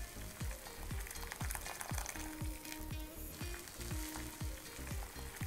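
Boiled water poured from a kettle onto blocks of instant noodles in a bowl, a steady splashing hiss, over background music with a steady thumping beat.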